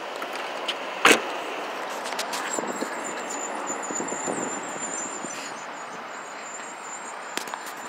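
A car door shuts with a single loud slam about a second in, followed by the steady noise of road traffic outdoors.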